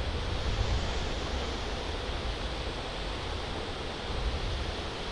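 Steady rushing noise of a large fountain's falling water, with a low rumble underneath.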